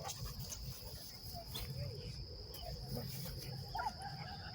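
Steady high-pitched insect drone, like crickets, over a low rumble, with a few faint short calls.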